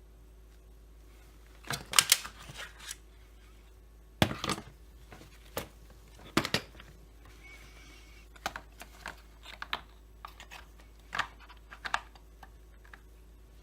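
Scattered clicks and knocks of chainsaw parts and small tools being handled, with the sharpest knocks about two seconds in and just after four seconds, and lighter clicks later on.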